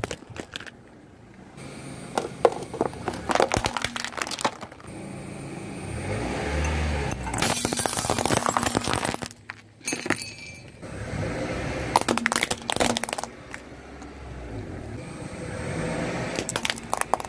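Car tyre rolling slowly over objects and crushing them in about four bursts of cracking and breaking, including a glass light bulb shattering and a plastic flashlight cracking near the end. A low rumble runs between the crushes.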